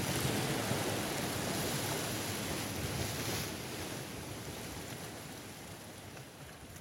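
Steady rush of water echoing in a rocky gorge, an even noise without distinct events, fading out slowly over the last few seconds.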